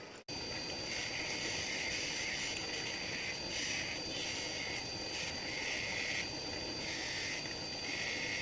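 Bench grinder running with a steady high whine while a steel chipping-hammer chisel bit is pressed against the wheel in repeated passes. Each pass is a hiss of grinding, about one a second, as the chisel tip is reground.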